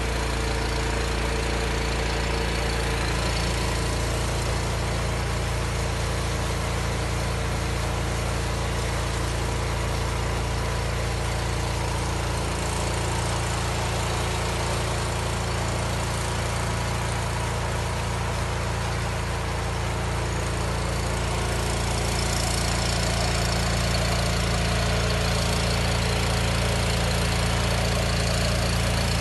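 An engine running steadily at an even idle, with a hiss over it.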